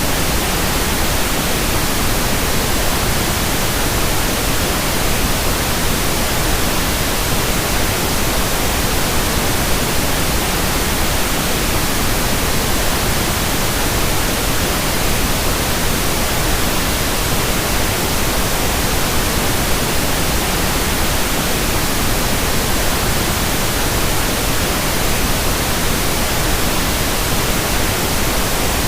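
Steady tinnitus-masking noise: an even, unbroken hiss with no tones, rhythm or changes in level.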